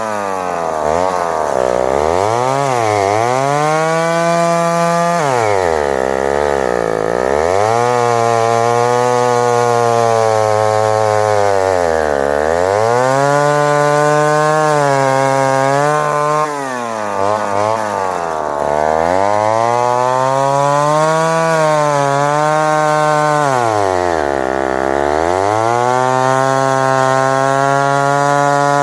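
Homelite Super Wiz 55 two-stroke chainsaw running hard through a log cut. Its engine speed sags deeply about five times and climbs back each time.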